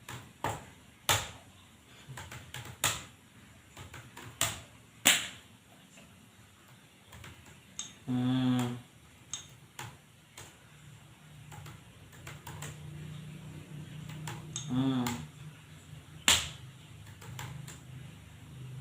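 Computer keyboard keys being typed on in irregular clicks, some struck harder than others. A short low buzz sounds about 8 seconds in and again briefly near 15 seconds, over a faint steady low hum in the second half.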